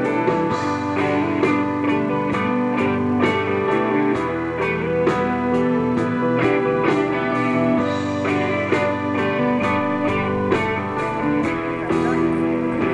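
Instrumental pop music led by guitar over a steady beat.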